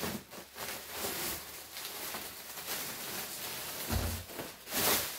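Plastic bags and bubble wrap rustling and crinkling as they are handled inside a cardboard box, with a louder bump and a sharper crinkle about four to five seconds in.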